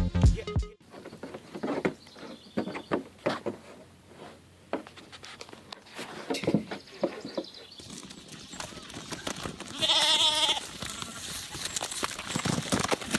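A farm animal bleats once, loudly, about ten seconds in, after a stretch of scattered knocks and rustling.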